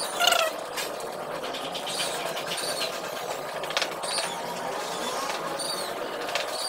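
Brief high-pitched chirps or squeaks, several scattered irregularly across a few seconds, over a steady background hum.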